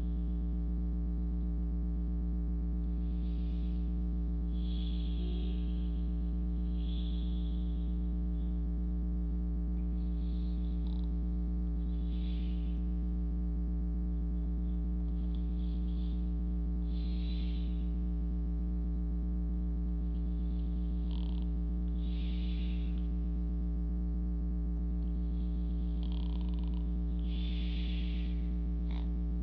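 A steady low hum, with a person's soft breaths faintly above it every couple of seconds.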